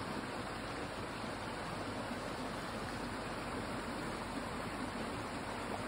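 Steady, even rushing of a nearby stream, unchanging in level.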